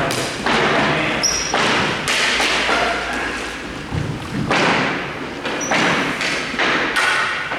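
Irregular thuds and knocks from hockey play, one every half second to a second: sticks and shots striking hard surfaces.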